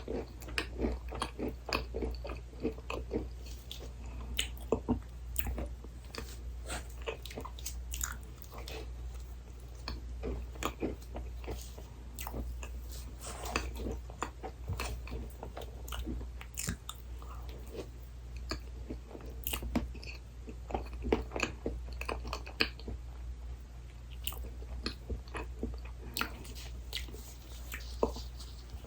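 Close-miked eating of dessert: bites and steady chewing, with many small sharp clicks and crunches throughout, over a steady low hum.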